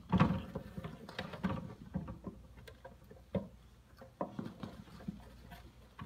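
Bearded dragon's claws scratching and tapping on paper towel as it walks: a run of irregular scrapes and clicks, loudest right at the start.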